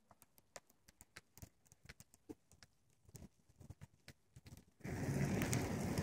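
A bonfire of brush and dry leaves crackling, with sparse, irregular sharp snaps. Nearly five seconds in, a loud, steady rushing noise cuts in abruptly as the flames blaze up.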